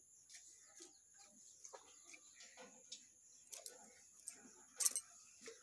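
Milk squirting by hand from a cow's teats into a steel pot: faint, short swishing strokes about twice a second, with one louder stroke near the end.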